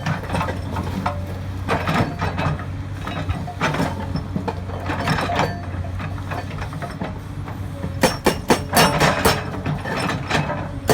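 Hydraulic breaker hammer on a Komatsu excavator striking rock, over the steady running of the excavator's diesel engine. Scattered knocks give way near the end to a fast run of blows, several a second.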